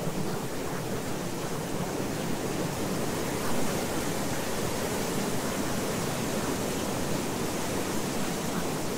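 Steady, even rushing noise with no tones, beat or audible speech: the masking layer of a subliminal affirmation track.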